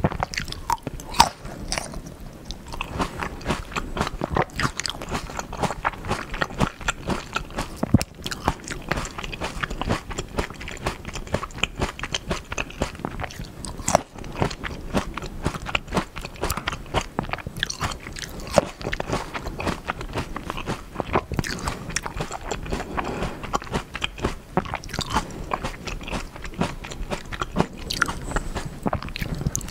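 Close-miked biting and chewing of seedless Black Sapphire grapes eaten with their skins on: a continuous run of short, sharp bites into the firm grapes followed by wet chewing, over and over.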